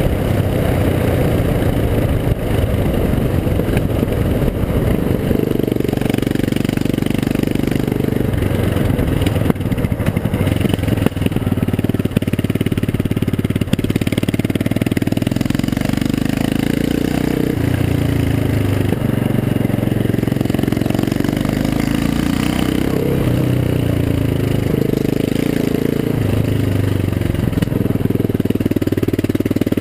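Yamaha XT660R's single-cylinder engine running loud through an opened, unmuffled exhaust, its revs rising and falling.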